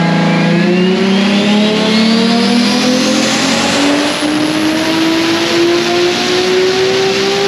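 Fully built Toyota 2JZ-GTE inline-six with a Precision 8685 turbo, pulling under load on a hub dyno: the engine note climbs steadily in pitch through the rev range. A thinner high whine rises along with it over the first few seconds.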